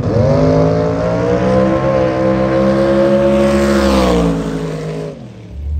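Drag race car's engine at full throttle on a pass down the strip, holding a high steady note. The pitch drops as the car goes by about four seconds in, then the sound fades away. A loud low rumble comes in near the end.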